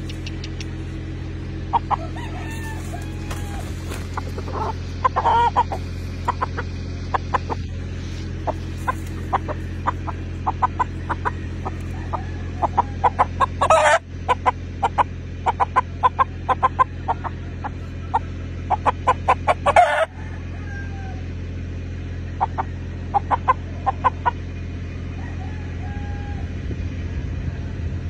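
Gamefowl rooster clucking and giving short calls, with many sharp clicks through the middle and two louder short bursts, over a steady low hum.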